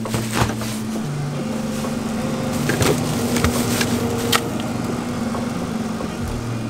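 Soft background music of sustained notes that change pitch every second or two, with a few brief clicks and knocks as a plastic compost bag is pushed into a freezer.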